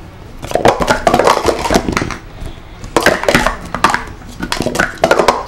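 Plastic sport-stacking cups clattering rapidly against each other and the mat as a 3-6-3 stack is built up and taken down, in three quick runs of clicking.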